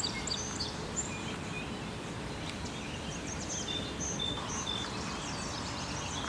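Marsh ambience: several small songbirds chirping and whistling here and there over a steady low background hiss.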